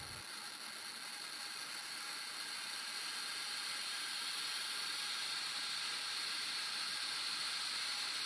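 Geiger counter with an SI-8B pancake tube, counting strong strontium-90 beta radiation so fast that the clicks merge into a dense, even hiss. It grows slowly louder as the check source is brought closer.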